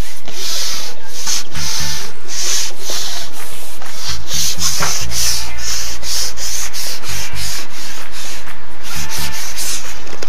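Background music with a stepping bass line and a rhythmic scraping, shaker-like percussion hissing about twice a second.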